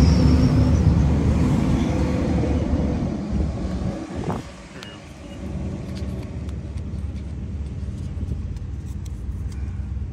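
Wind buffeting the microphone: a heavy low rumble that eases sharply about four seconds in, then goes on lower and steadier, with small scattered clicks of handling over it.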